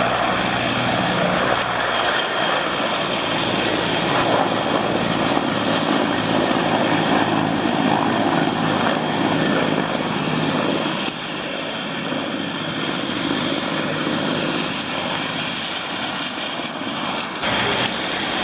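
Mi-24 helicopters flying over, a loud steady drone of rotors and turbine engines. It eases slightly about halfway through.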